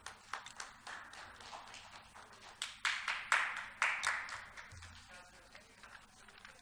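Scattered light clapping from a few people, irregular and thin, swelling for a couple of seconds in the middle and then dying away.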